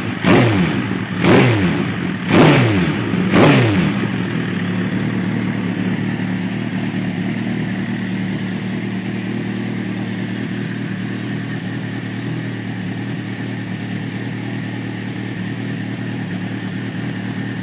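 Suzuki GSX-R1000 inline-four engine breathing through a Kentz aftermarket muffler, blipped four times in quick succession, each rev rising and dropping straight back, then settling into a steady idle.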